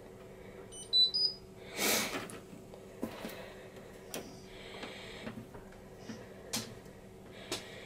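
Hotpoint washing machine's control panel being set: short high electronic beeps about a second in, then a series of sharp clicks from the programme dial and buttons being turned and pressed, with one louder bump near two seconds.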